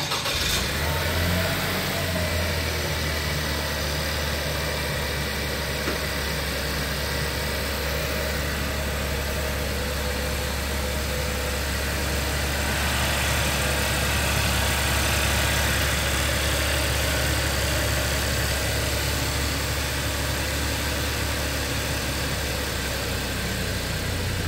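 Small SUV's engine started up with a brief flare, then idling steadily with a low, even hum until it is switched off near the end.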